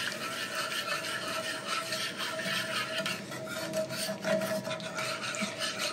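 A whisk scraping and rubbing round the bottom of a pan in quick repeated strokes, stirring milk into a flour-and-butter roux as sausage gravy thickens.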